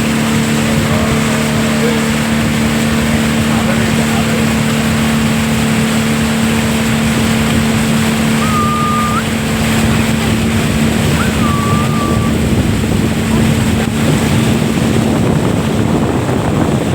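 Motorboat engine running with a steady hum under loud wind and water noise; the engine hum fades away about fifteen seconds in. Two short whistles come in the middle.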